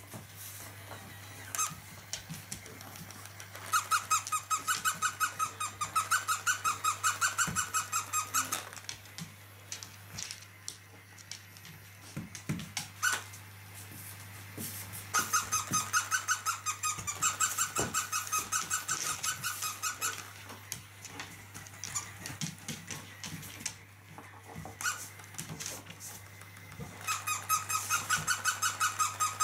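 Plush toy puppy squeaking in three runs of rapid, evenly repeated high squeaks, about five a second, each run lasting several seconds, with scattered light clicks in between.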